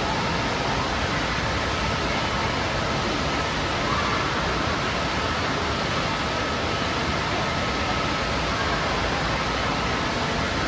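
Steady rushing noise of water in an indoor water park, an even wash with no breaks, with faint voices mixed into the din.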